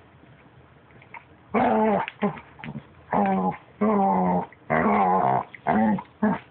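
Puppy making whiny, growl-like 'talking' noises: about five drawn-out pitched calls in a row, starting after a second and a half of quiet.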